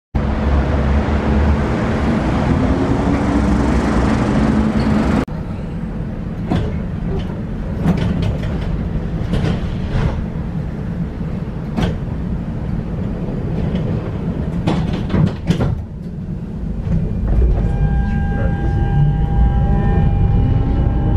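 Electric tram sounds. For about five seconds a tram's running noise carries a slowly rising motor tone, then the sound changes abruptly to the ride heard from the tram's front end, with irregular sharp clicks and knocks. Near the end the electric traction motors whine in steady and rising tones as the tram pulls away.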